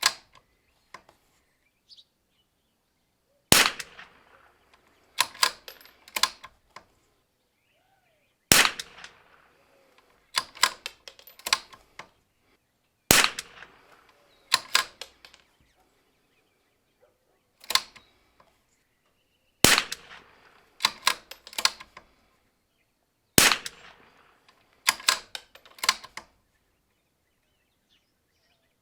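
Zermatt Rim-X bolt-action .22LR rifle firing single shots about every four to five seconds. After each shot comes a quick run of small metallic clicks as the bolt is cycled to eject and chamber the next round.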